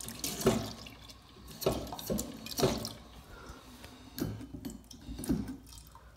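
Five dull knocks, about a second apart, over faint water sounds.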